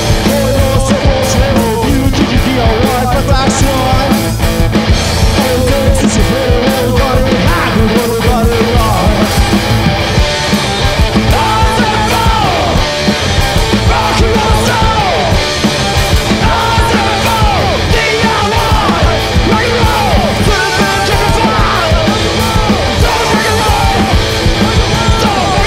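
Loud live punk-blues rock from a two-piece band: driving electric guitar and drums, with a lead line that bends and slides in pitch.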